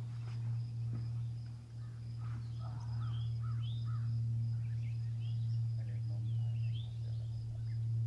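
Small birds chirping and singing in short, quick notes from the shrubs, over a steady low hum, with a faint steady high-pitched tone throughout.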